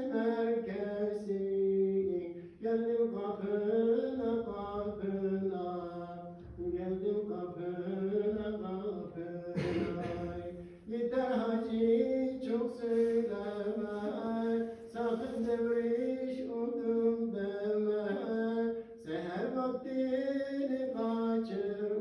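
An ilahi, a Turkish Islamic hymn, sung unaccompanied in long held, ornamented notes, in phrases of a few seconds broken by short breaths.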